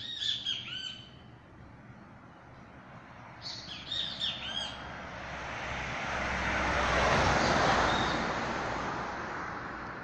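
A bird calling in two quick runs of sharp, arching chirps, one at the start and another about four seconds in. From about five to nine seconds a rush of noise swells and fades, louder than the chirps.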